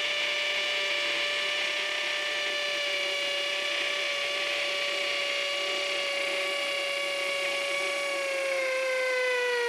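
Hilti SF 6H-A22 cordless hammer drill running steadily as a 1/8-inch bit bores into a concrete block: a steady high motor whine whose pitch sags a little near the end.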